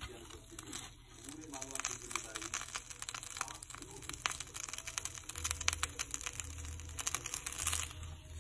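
A slice of bread frying in oil on a ridged cast-iron grill pan, sizzling with a quick, steady run of small crackles.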